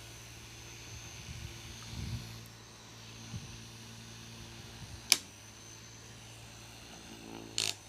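Small USB table fan running with a steady motor hum and whir of its blades, with a few soft handling knocks around two seconds in and a sharp click about five seconds in.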